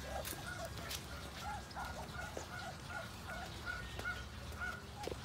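Muscovy ducks giving short, soft calls over and over, with a regular run of higher, evenly spaced peeps from about two seconds in.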